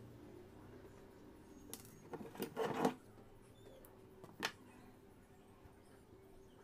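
Cotton fabric rustling and being handled during hand-sewing, with a few short scratchy rustles in the middle, the loudest about three seconds in, over a faint steady hum.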